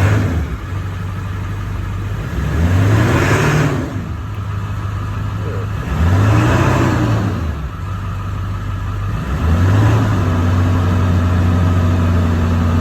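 Ford F-250 Power Stroke diesel engine idling and revved three times from the accelerator pedal: two short revs a few seconds apart, then a third held raised for several seconds. The engine answers the pedal cleanly: the newly fitted manual accelerator pedal is working.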